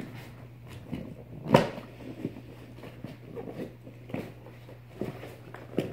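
A shipping box being handled and opened by hand: scattered rustles and light knocks, with one sharp, loud knock about a second and a half in.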